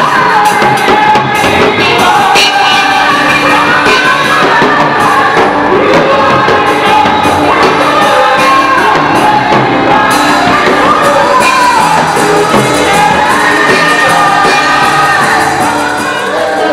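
Live gospel praise singing: a church praise team singing into microphones over amplified accompaniment with a beat, with shouts from the congregation.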